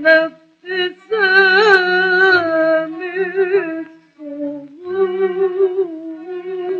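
A woman singing an Arabic song in long, ornamented phrases with vibrato, broken by short pauses.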